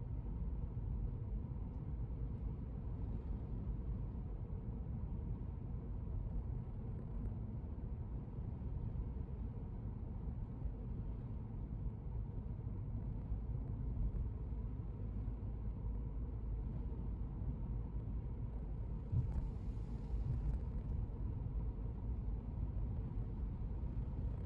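Steady low rumble of a car on the move, road and engine noise picked up by an in-car camera.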